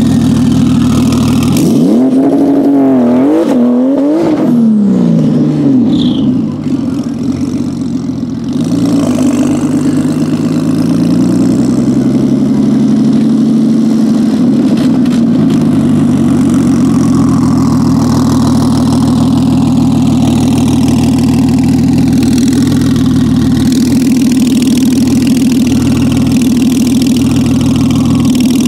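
Porsche 991 Turbo S's tuned 3.8-litre twin-turbo flat-six launching hard and accelerating away. Its revs climb and drop through quick gear changes, then the sound fades. After that the engine runs at low revs, with a few slow rises and falls, and then idles steadily.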